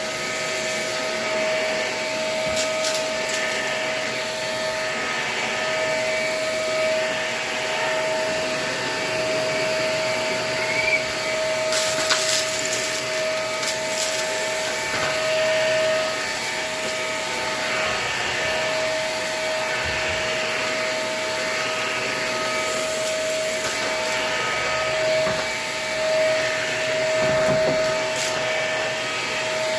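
Vacuum cleaner running steadily with a constant motor whine while its filter is badly clogged with dirt. A few brief sharp clicks come about twelve seconds in, as of debris being picked up.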